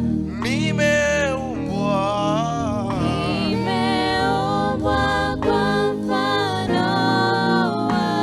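Gospel praise song: singing in held, gliding phrases over steady instrumental backing chords.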